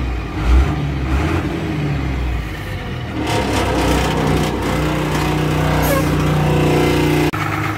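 Diesel engine of a 2003 Ashok Leyland bus running just after a cold start from about ten years of standing. About three seconds in it is revved to a higher, steady speed, then it drops back suddenly near the end.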